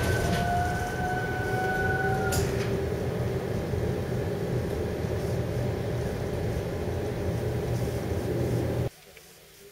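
Interior running noise of a Tatra tram travelling along its line: a steady rumble of wheels and running gear, with an electric whine that glides in pitch for the first two seconds or so. It cuts off suddenly near the end to a much quieter background.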